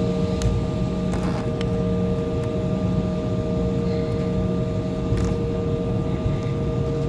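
Airliner cabin noise after landing: a steady low rumble of the jet's engines and air system, with a constant whine in a few fixed pitches and a few faint clicks.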